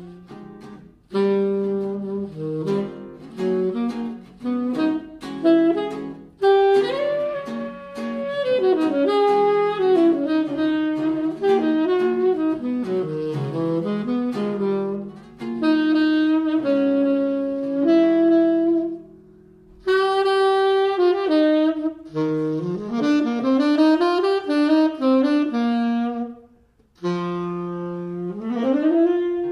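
Tenor saxophone playing a jazz melody in phrases with short breaths between them, over jazz guitar accompaniment; near the end it slides up into a held note.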